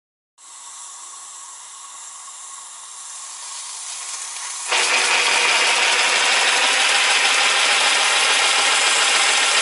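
Live steam three-cylinder garden railway locomotive under steam: a quieter steady hiss, then about five seconds in an abrupt much louder rush of steam as steam is let through the engine and blows out of the front end, holding steady.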